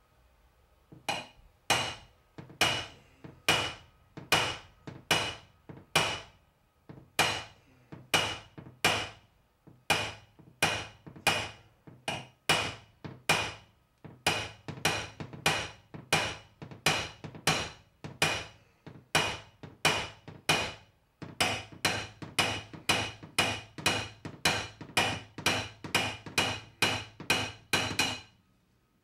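Hammer striking a SlapperTapper, a paintless-dent-repair slapper held against a car door's sheet metal, to knock down a crown (high ridge) at the top of the door. A steady run of sharp metallic taps, each ringing briefly, about three every two seconds with a few short pauses.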